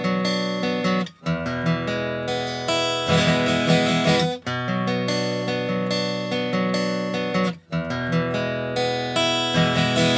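Background music: a strummed acoustic guitar playing a repeating phrase that breaks off briefly about every three seconds.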